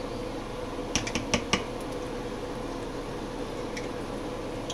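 Small besan fritters deep-frying in hot oil in a steel karahi, the oil sizzling steadily. A quick run of four or five sharp clicks about a second in, from a spoon knocking against the steel pan.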